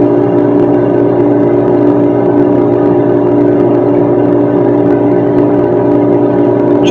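Steady mechanical drone with several held low tones and an even hiss beneath, unchanging throughout.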